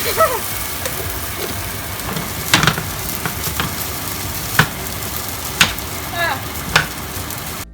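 Vegetable stir-fry sizzling in a hot pan, with a cooking utensil knocking against the pan about five times as it is stirred.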